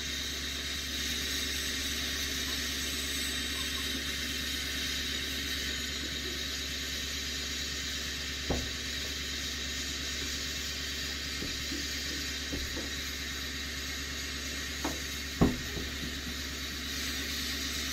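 Emissions-deleted Duramax LML 6.6-litre V8 turbodiesel idling at a distance while it warms up after a −34° cold start: a steady low hum under an even hiss. Two brief knocks come about eight and fifteen seconds in.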